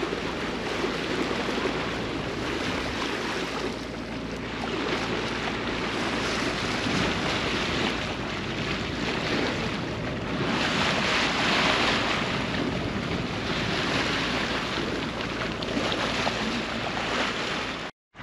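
Seawater washing past a sailing yacht's hull on a calm sea, with wind rumbling on the microphone; the rushing noise swells and eases in slow waves, loudest about two-thirds of the way through. It cuts out briefly near the end.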